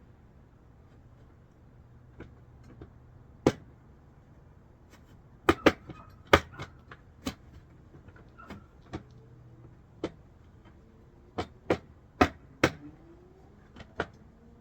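Irregular sharp clicks and knocks of bolts, nuts and metal brackets being handled and fitted to a cargo box, some in quick pairs.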